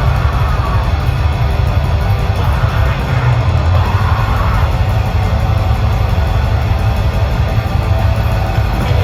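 Live blackgaze band playing loud and steady: dense distorted electric guitars over a heavy, booming low end.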